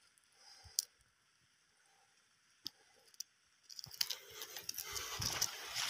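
A few small, separate clicks of dry mung bean pods handled in the hand, with near silence between them. From about four seconds in, a crackling rustle full of tiny clicks builds up and grows louder.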